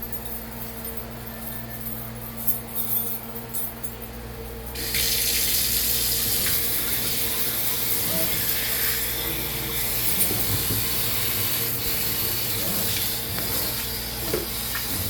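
Water running from a sink faucet, turned on about five seconds in and then flowing steadily into the sink. A few light clicks and knocks come before it, with a faint steady hum underneath.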